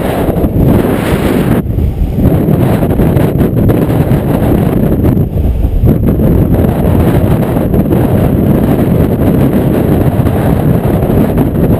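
Very strong wind buffeting a chest-mounted GoPro's microphone: a loud, continuous low rumble that swells and dips with the gusts.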